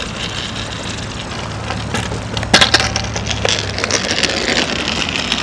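Longboard deck and wheels clacking and knocking on asphalt several times during a freestyle trick, the loudest clack about two and a half seconds in, over a steady background rush.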